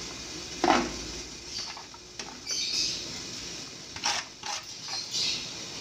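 Vegetables being put into a stainless steel steamer pot: rustling of leaves and bean sprouts, with a few light knocks against the metal, the sharpest about a second in and a cluster around four seconds in.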